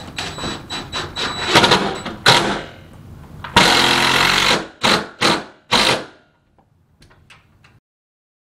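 Cordless power driver fastening hardware on a door: clicks and knocks in the first couple of seconds, then a run of about a second from the motor about three and a half seconds in, followed by three short trigger pulses.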